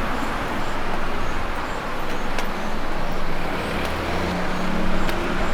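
Street traffic on a wet road: a steady hiss of tyres with a vehicle's engine hum swelling about three and a half seconds in, and a few faint ticks.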